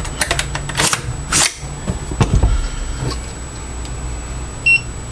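AR-style rifle being handled between trigger-pull tests: a run of clicks and two short rasping slides in the first second and a half, a dull knock, another click, then one short, high electronic beep near the end from the digital trigger pull gauge.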